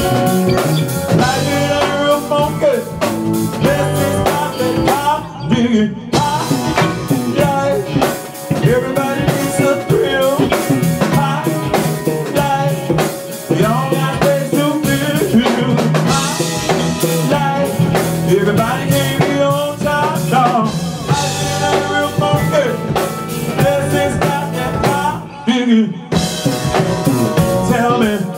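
Live band playing: drum kit, electric bass and keyboards with a singer, a steady beat throughout and two short breaks where the band briefly drops out.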